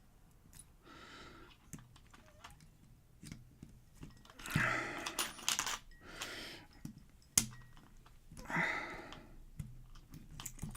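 Small metallic clicks and rattles of a pin-tumbler lock being handled and taken apart, with a few short scraping, rustling stretches in between.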